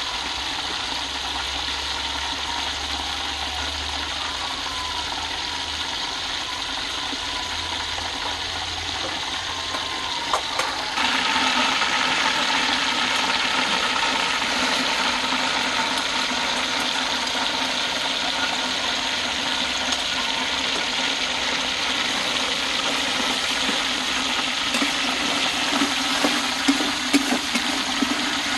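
Food sizzling in hot oil: a chicken stir-fry frying in a pan, then chicken pieces deep-frying in a wok of bubbling oil, with the sizzle suddenly louder about eleven seconds in. Near the end a metal spatula clicks and scrapes against the pan.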